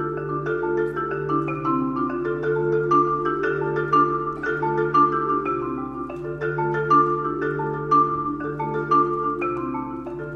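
Solo concert marimba played with four mallets: sustained low bass notes under a steady stream of quicker struck notes higher up.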